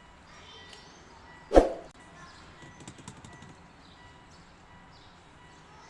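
A single dull knock about a second and a half in, followed by a few faint light clicks.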